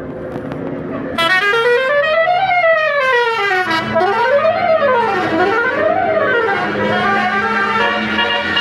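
Bus 'telolet basuri' musical horn sounding about a second in: a loud tone that slides up and down in pitch in slow swoops, about three rises and falls. A low steady tone joins underneath from about four seconds in.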